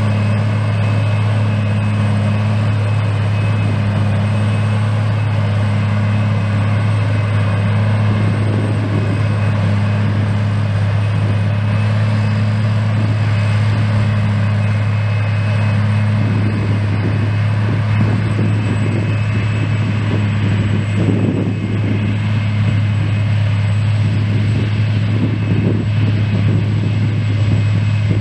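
John Deere 8800i self-propelled forage harvester working under load, chopping grass and blowing it through its spout into a trailer driven alongside: a loud steady deep drone with faint steady high whines over it.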